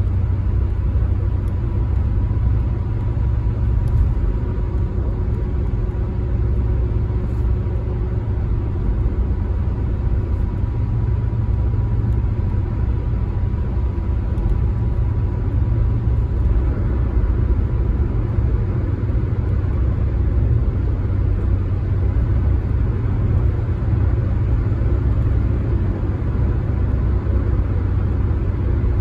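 Car driving at steady speed, heard from inside the cabin: a steady low road and engine rumble with tyre noise, and a faint steady whine during the first half.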